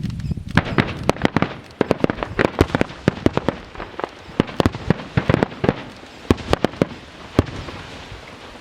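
Fireworks going off: a rapid, irregular string of sharp bangs and crackles, several a second, that thins out and fades near the end.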